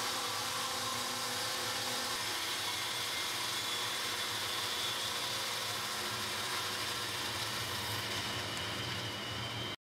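Bandsaw fitted with an Axcaliber GT ground-tooth blade ripping through a block of timber, a steady running and cutting noise with a faint high whine. It cuts off suddenly near the end.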